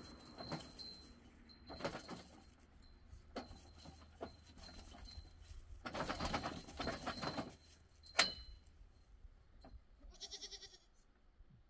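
Scattered knocks and clatter as the metal tent frame and gear are handled, with one sharp ringing clank about eight seconds in. A goat bleats once, briefly, near the end.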